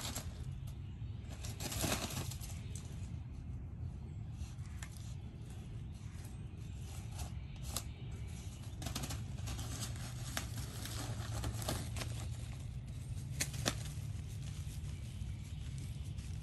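Basenji puppy digging in pine straw: irregular scratchy rustles and crackles of pine needles being pawed, in short bursts, over a steady low hum.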